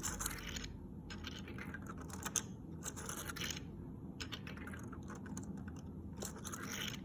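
Star-shaped fidget toy being twisted and folded in the hands: irregular runs of small plastic clicks and clacks, with short pauses between them.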